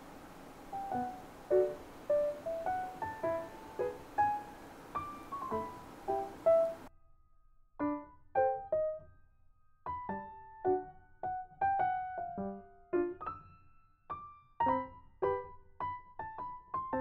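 Background music: a light, gentle melody of single piano notes. A faint hiss under the first seven seconds drops out and the notes carry on alone.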